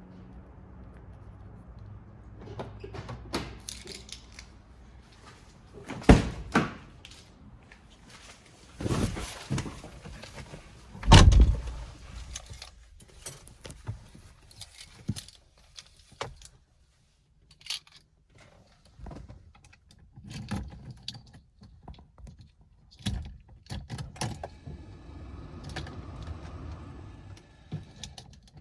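Keys jangling amid a scattered run of knocks, clicks and thuds, the loudest about six and eleven seconds in; no engine running yet.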